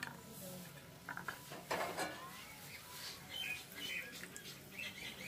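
Thin spice-and-water gravy bubbling in a frying pan as it comes to the boil. Scattered faint chirps are heard over it, and there is a short rustle about two seconds in.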